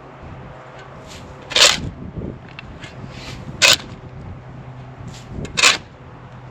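A shovel scraping through dirt, four short, harsh strokes about two seconds apart, over a steady low hum.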